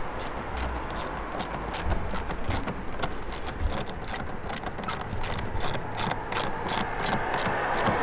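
Hand ratchet wrench clicking as it tightens a car battery terminal clamp: a steady run of sharp clicks, about three or four a second.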